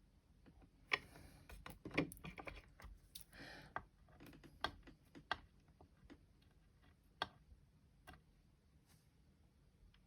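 Scattered small clicks and taps with a couple of short rustles, from paper craft pieces and supplies being handled on a tabletop. The sharpest clicks come about 1, 2 and 7 seconds in.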